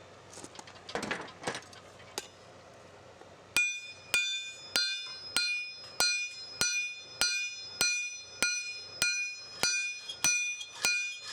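Hand-forging with a ball-peen hammer on an anvil: after a few faint knocks, steady hammer blows begin about three and a half seconds in, a little under two a second, each with a bright ringing note from the anvil. The steel blade is being drawn out to lengthen it.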